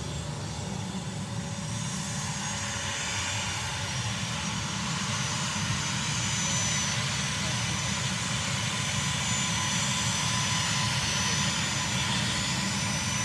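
C-146 Wolfhound turboprop transport landing on the highway. Its engine noise swells over the first several seconds and then holds steady, with a high engine whine.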